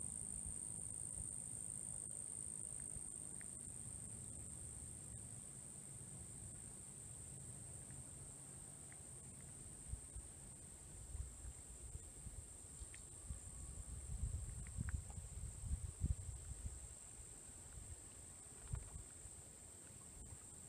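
A steady, high-pitched chorus of insects droning without a break. From about halfway in there are low bumps and rumble on the microphone.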